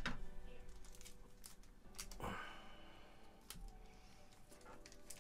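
Faint handling of Pokémon trading cards and a foil booster pack: scattered light clicks and rustles, with one longer, louder rustle about two seconds in.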